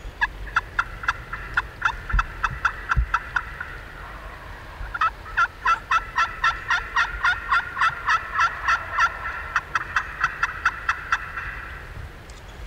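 Turkey calling in two fast runs of sharp, repeated notes, about five a second. A short pause comes about four seconds in; the second run is longer and stops about a second before the end.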